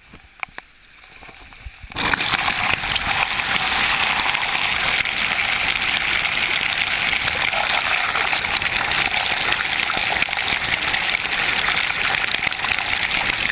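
Loud, steady rush of water, starting suddenly about two seconds in and cutting off abruptly near the end.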